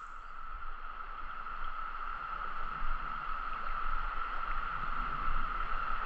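Steady, unbroken drone of a Brood X periodical cicada chorus, over the rush of a shallow stream riffle.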